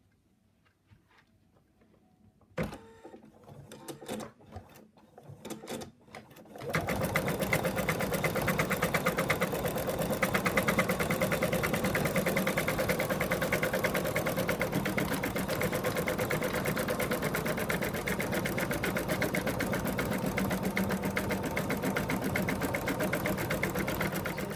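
A few clicks and handling noises, then about a quarter of the way in an embroidery machine starts and stitches steadily with a fast, even needle rhythm. It is finishing the stitching around the muzzle after the stuffing has been tucked in.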